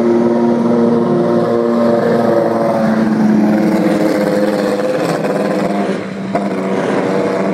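Historic Formula One car's engine running at low, fairly steady revs as it drives down the pit lane, the pitch shifting only slightly. A sharp click sounds just after the level dips, about six seconds in.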